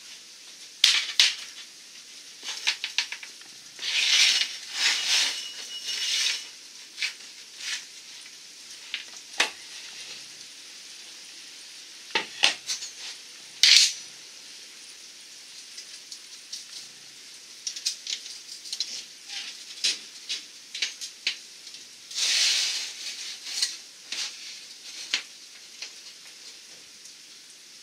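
A thin metal band being bent by hand into a ring around a round wooden template: irregular scraping and rustling of the light metal, with scattered clicks and a few sharper clinks.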